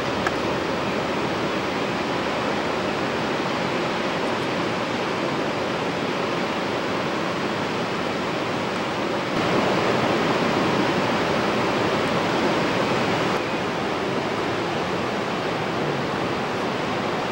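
Ocean surf breaking and washing around rocks: a steady rushing noise of waves and white water, louder for about four seconds in the middle.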